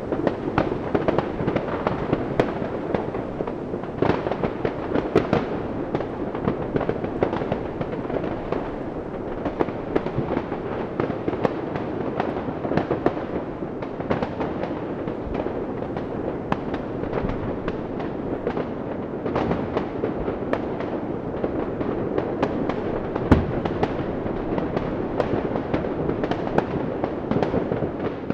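Fireworks and firecrackers going off without pause, a dense crackle of many overlapping bangs, with one louder bang about three quarters of the way through.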